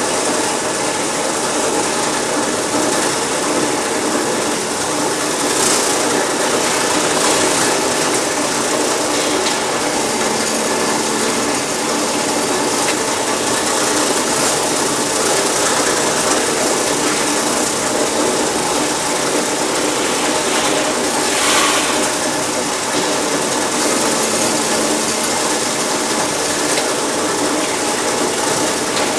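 Plastic ball chain making machine and its injection moulding machine running steadily, making a continuous mechanical noise that does not let up.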